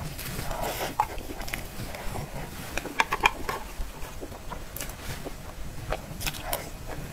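Eating sounds: a metal spoon clicking and scraping against a clear plastic box of soft cream cake, with soft mouth and chewing sounds. There are scattered short clicks, a cluster of them about three seconds in and a few more near the end.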